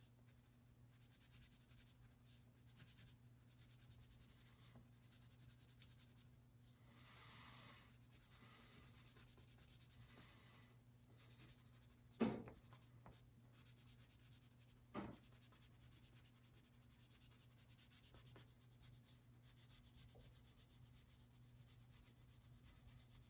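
Faint rubbing and scratching of a crayon on paper as an area is coloured in, over a low steady hum. Two short, louder noises stand out about twelve and fifteen seconds in.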